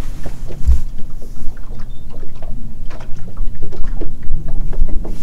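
Wind buffeting the microphone and small waves slapping against an open fishing boat's hull, making a steady low rumble with many short knocks and splashes.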